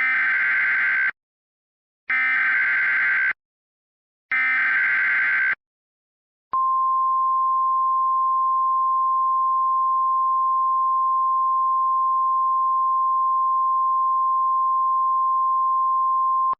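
Emergency Alert System SAME header: three bursts of screechy data tones, each about a second long with a second's gap between them. After a short pause comes a single steady high tone lasting about ten seconds: the National Weather Service's single-tone attention signal that announces an emergency alert.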